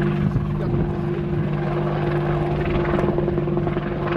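Westland WAH-64D Apache AH1 attack helicopter flying overhead: the fast, steady chop of its four-blade main rotor over a steady engine hum.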